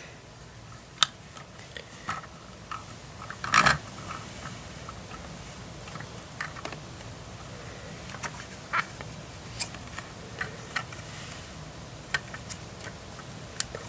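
Scattered light clicks and taps of plastic LEGO parts on a built LEGO police car being handled and opened, the loudest a short rattle a little under four seconds in.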